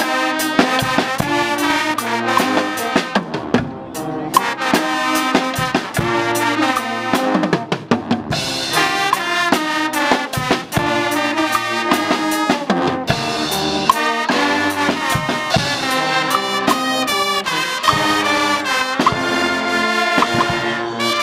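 Guggenmusik carnival band playing live: trumpets, trombones, sousaphones and other brass over a drum kit with cymbals and bass drum, with a short break about eight seconds in.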